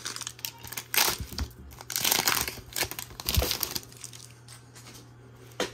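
Foil booster-pack wrapper of a trading card game crinkling as it is handled, in several short bursts over the first four seconds and one more sharp crackle near the end.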